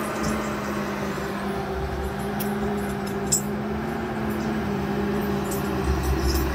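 John Deere 640D skidder's diesel engine running steadily as the machine drives through snow, heard through a window, with one sharp click about three seconds in.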